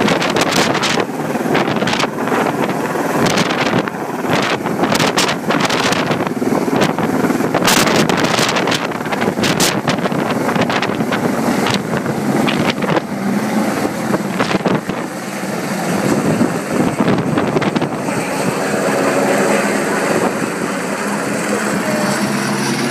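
Helicopter running overhead with a cow slung beneath it on a long line, its rotor and engine noise mixed with wind buffeting the microphone. Steady engine tones come through more clearly in the last few seconds as the wind gusts ease.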